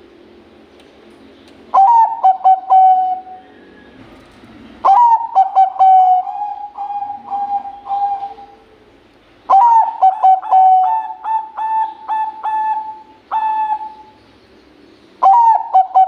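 Zebra dove of the Thai 'Bangkok' song line cooing its song: four phrases, each opening with a sharp rising note and running into a string of rolling coos, the last starting near the end.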